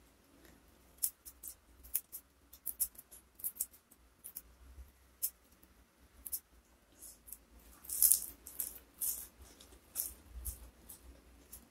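Fresh leafy herb sprigs being picked apart by hand: a scatter of crisp snaps and leafy crackles, busiest about eight seconds in.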